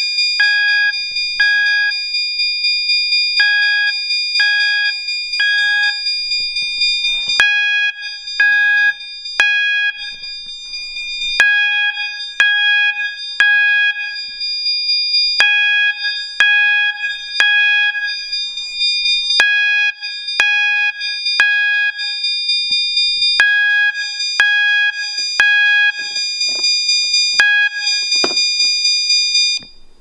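Fire alarm system sounding in alarm after a pull station activation: a steady high electronic sounder tone runs under a System Sensor chime/strobe chiming in the temporal-three pattern, three ringing notes then a pause, repeating about every four seconds. The alarm cuts off at the very end.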